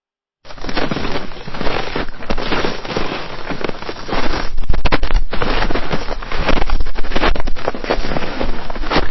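Footsteps crunching in snow: a dense, continuous run of crackling crunches that starts about half a second in and grows louder from about four seconds in.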